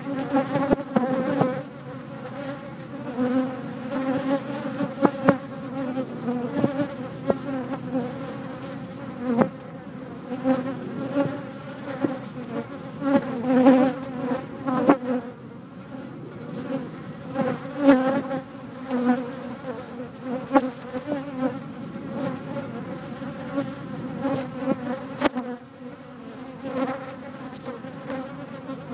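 Bees swarming a phone and buzzing close to its microphone. The hum swells and fades as they come and go, with a few sharp ticks along the way.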